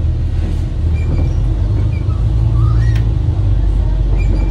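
Steady low rumble of vehicle traffic, with faint short bird chirps, one of them rising, every second or two.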